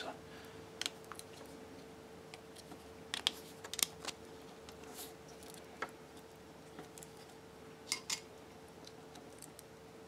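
Scattered small clicks and taps of a plastic three-pin mains plug and its brass pins being handled as wires are fitted into it, over a faint steady hum.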